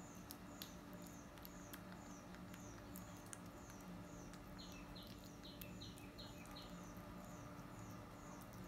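A bird repeating a short, high, falling chirp about twice a second, with a run of about five lower chirps from a second bird midway. Faint clicks from a baby macaque chewing banana and a low steady hum lie beneath, all quiet.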